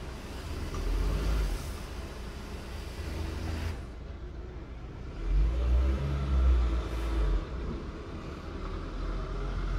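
Road traffic: a car engine passes and accelerates, loudest a little past halfway, over a steady low rumble.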